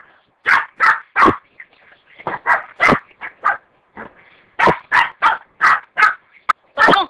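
A dog barking repeatedly in quick runs of several barks, with short pauses of about a second between the runs.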